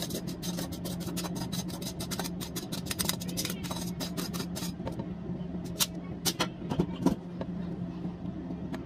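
A stainless-steel mesh colander of boiled rice being shaken and handled: a rapid run of sharp metallic clicks, then a few separate knocks from about five seconds in, over a steady low hum.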